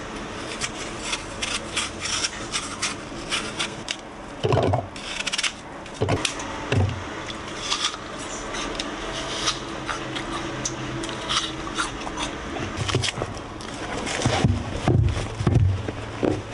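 A kitchen knife scraping and cutting through an apple, with a few knocks about five to seven seconds in. Near the end, a cloth tote bag rustles and knocks as it is handled and packed.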